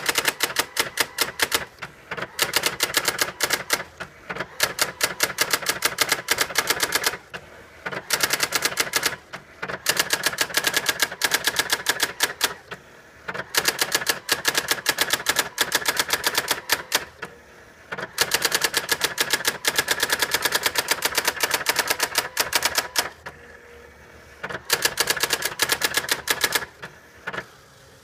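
Brother Correctronic GX-6750 electronic typewriter printing its self-demo: fast, even runs of daisy-wheel strikes, each line a quick rattle of clicks, with brief pauses between runs as the carriage returns and the paper advances.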